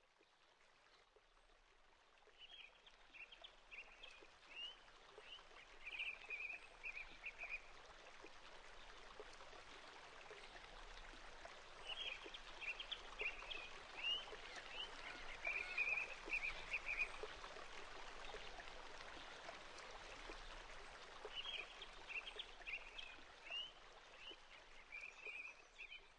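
Quiet outdoor nature ambience: a steady rush like running water, with a songbird singing the same short phrase of chirps ending in a trill three times, about nine to ten seconds apart.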